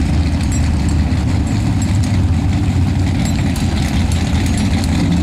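A lifted mud-bog pickup truck's engine idling with a steady low drone.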